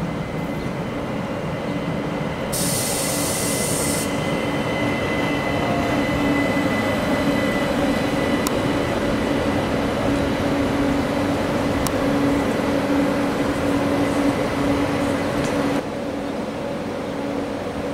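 ÖBB train running on the track, with a steady hum and a thin high whine. A short burst of hiss comes about three seconds in, and the sound drops abruptly near the end.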